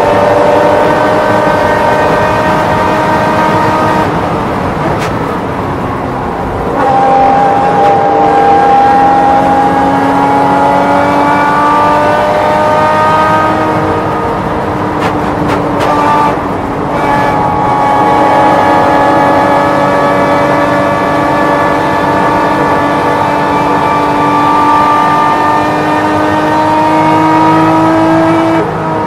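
Porsche race car engine at high revs under full throttle, with wind rush. Its pitch climbs slowly, falls away and changes abruptly about four to seven seconds in and again around fifteen to seventeen seconds, then climbs steadily until it drops off at the very end.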